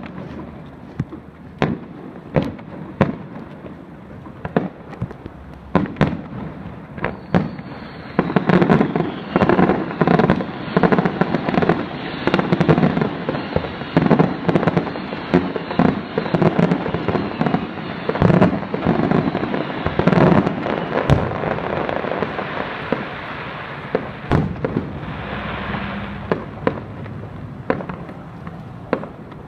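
Aerial fireworks going off: scattered booms at first, then from about eight seconds in a dense, rapid barrage of bangs and crackling lasting some fifteen seconds, thinning back to separate booms near the end.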